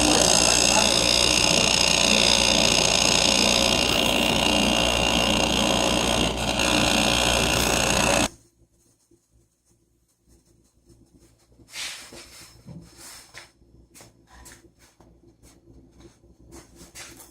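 Daewoo FR-S690FGM refrigerator compressor running loudly, a steady hum with several high whining tones over it, a noisy compressor due for replacement. It cuts off suddenly about eight seconds in, leaving only faint clicks and rustling.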